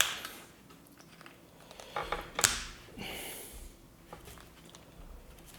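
Handling noises from assembling an electrical plug by hand: scattered clicks and knocks of small plastic and metal parts, with a loud sharp click about two and a half seconds in and a short scraping rustle just after.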